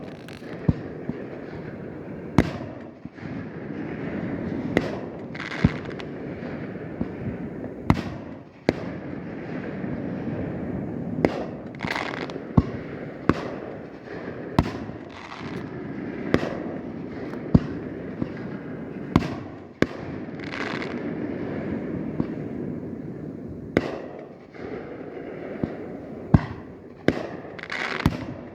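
Fireworks display: a steady run of sharp bangs, roughly one every second or two, over a continuous rumble of shell bursts, with crackling after some of the explosions.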